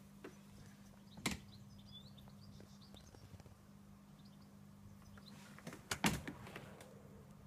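A door clicks sharply about a second in, then rattles and knocks more loudly near six seconds, as a patio door is worked. Small birds chirp faintly in the background.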